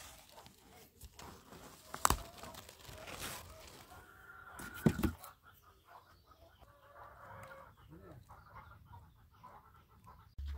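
Chickens clucking in the background, with two sharp knocks about two and five seconds in.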